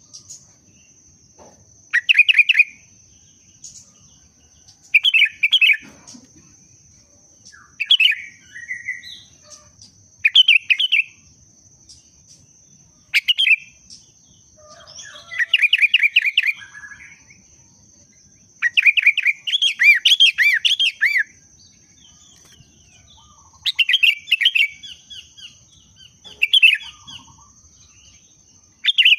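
Sooty-headed bulbul (kutilang) in breeding condition singing: short bubbly whistled phrases every two to three seconds, with a couple of longer, fuller phrases in the middle of the stretch.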